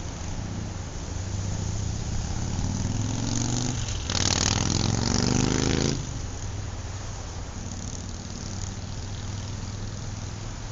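A steady low hum under a noisy background, with an engine rising in pitch as if revving up; it grows loudest about four seconds in and cuts off suddenly about two seconds later.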